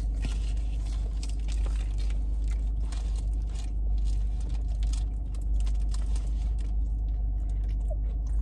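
A person chewing fast food close to the microphone, with crunchy mouth clicks that thin out after about five seconds, over a steady low rumble inside the car.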